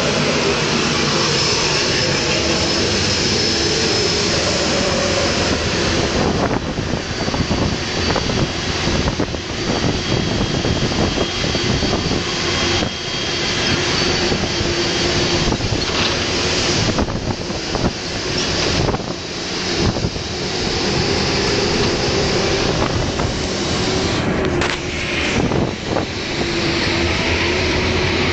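Jet engines of a large Boeing airliner rolling along the runway, a steady loud roar with a thin high whine, mixed with the rumble of the ground vehicle it is heard from.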